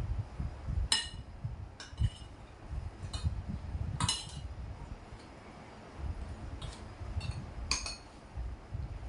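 Metal spoons clinking against ceramic plates and bowls as food is eaten: a handful of short, sharp ringing clinks scattered through, over faint low knocking.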